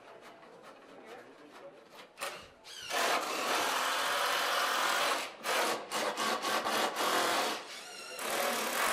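Cordless drill driving screws into wooden stair pickets. It runs steadily for about two seconds, then gives several short stuttering bursts as the screw is seated, and runs again briefly near the end.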